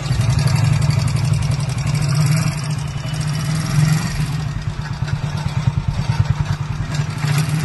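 Hero Splendor's single-cylinder four-stroke engine idling with a rapid, even tik-tik tapping from the top of the engine: a loose upper tappet (too much valve clearance).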